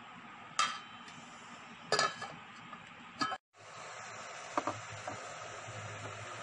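Glass pot lid clinking against a steel cooking pot three times as it is moved on the pot of simmering rice. After a brief cut, a steady hiss follows with a couple of light clicks of tableware on a ceramic bowl.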